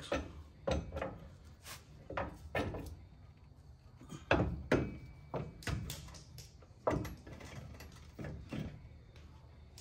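Irregular metal clunks and knocks of a new front strut-and-coil-spring assembly being worked up into a pickup's wheel well, knocking against the suspension as its top studs are lined up with the mount. The loudest knocks come about four seconds in and again about seven seconds in.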